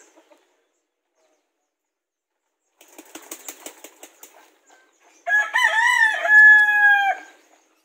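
A rooster crowing once, a loud call of about two seconds starting a little after halfway. It is preceded about three seconds in by a brief burst of wing flapping.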